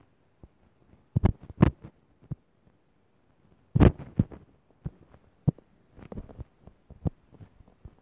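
Irregular soft thumps and taps of fingertips on a phone's touchscreen, picked up by the phone's own microphone. A quick cluster comes about a second in and the loudest thump just before four seconds in, with lighter taps after.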